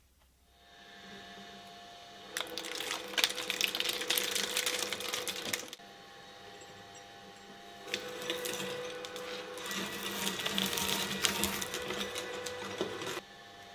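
Shredder motor starting and running with a steady hum, with two long stretches of dense crackling and crunching as material goes through its cutters. The crunching cuts off suddenly near the end, leaving the motor humming on its own.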